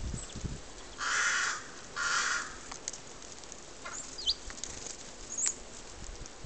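A bird, likely a crow or another corvid, gives two short, rough calls about a second apart. A few faint, thin high chirps follow near the end.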